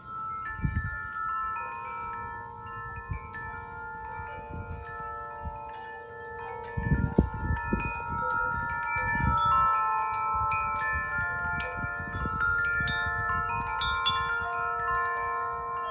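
Wind chimes ringing in the storm wind, many tones of different pitches sounding and fading over each other. Gusts of wind buffet the microphone, strongest about seven seconds in.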